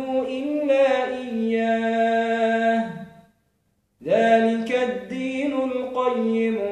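A man's voice reciting the Qur'an in melodic tajwid style, drawing out long held notes that step and bend in pitch. The voice stops briefly about three seconds in, then starts again.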